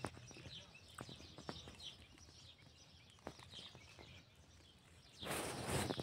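Faint outdoor background with small high bird chirps and a few scattered clicks. About five seconds in, a loud hiss comes in.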